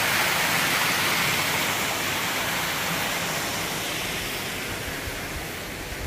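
Water rushing over a small rocky waterfall in a mountain stream, a steady even rush that grows gradually fainter near the end.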